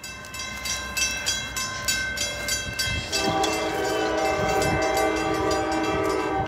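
Grade-crossing warning bell dinging rapidly and evenly. About three seconds in, the approaching freight locomotive's horn comes in with a steady chord and holds, over a low rumble of the train.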